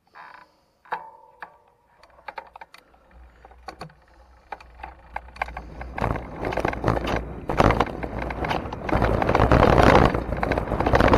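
Mountain bike and mounted camera rattling over a dirt trail, with wind buffeting the microphone. It starts with scattered clicks and knocks, then about six seconds in it builds into a loud, continuous rattle and rumble as the ride picks up speed.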